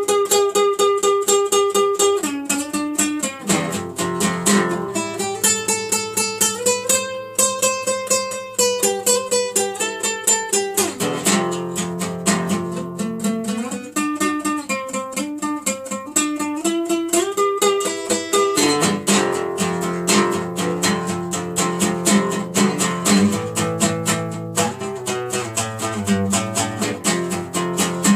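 Classical acoustic guitar played solo: quick runs of plucked notes and sustained chords, with dense rapid strumming in the second half.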